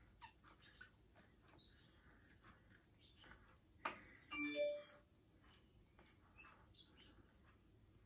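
Faint lovebird chirps with scattered soft clicks and rustles, the loudest a short call with a few held tones about four and a half seconds in.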